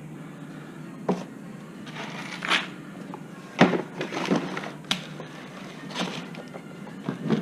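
Tools and metal parts being handled: about seven irregular clicks and clacks, like pieces of a brake caliper piston tool kit being picked out and set down, over a steady low hum.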